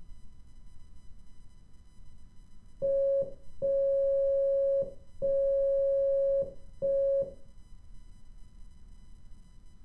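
Morse code beep tone keyed slowly as dit-dah-dah-dit, the letter P. It is one steady mid-pitched beep, sounded short, long, long, short, starting about three seconds in and ending a little past seven seconds.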